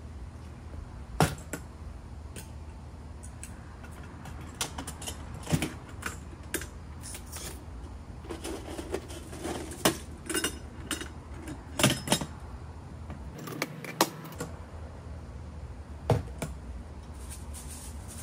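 Clinks and knocks of metal gear being handled: a steel ammo can set down on paving stones and a coiled stainless steel propane hose being unwound, its fittings jangling. About half a dozen sharper knocks stand out among lighter clattering.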